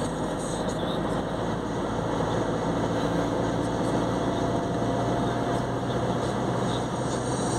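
Steady engine and tyre-on-road noise inside the cabin of a car driving at an even speed.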